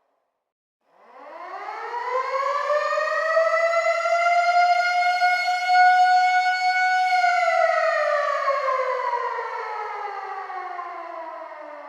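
Civil defense air raid siren starting up about a second in: its pitch rises quickly to a high steady tone, holds for about five seconds, then slowly falls away.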